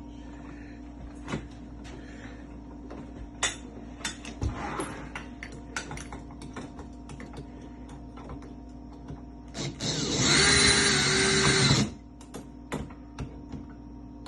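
Lock hardware being worked on by hand during a mortise lock change: scattered metal clicks and taps. About ten seconds in, a small power tool runs steadily for about two seconds, louder than everything else, then stops.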